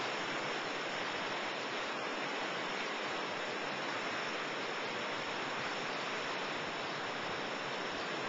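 Ocean surf breaking on the shore, heard as a steady, even hiss with no single wave standing out.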